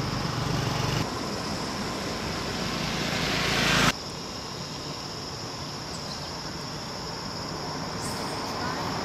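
A vehicle approaching on the road, its noise growing steadily louder and then cutting off abruptly about four seconds in. After that comes a quieter, steady outdoor hiss.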